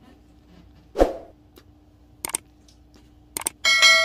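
A thump about a second in, then two quick double clicks, then a bright bell chime near the end that rings on: a subscribe-button animation's mouse-click and notification-bell sound effect.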